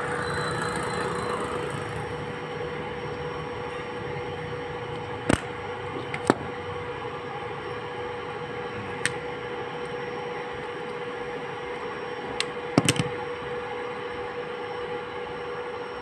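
A handful of sharp metal clinks, irregularly spaced with a quick cluster of them later on, as a wrench works a broken bolt out of a motorcycle cylinder head, over a steady background hum.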